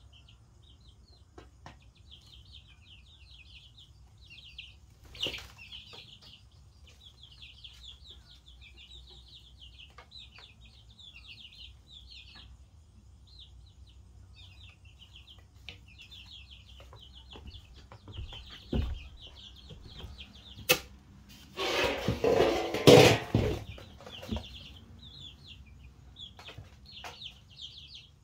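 A flock of two-week-old chicks peeping steadily in short, high, rapid chirps. About three-quarters of the way in, a louder noisy burst lasts about two seconds.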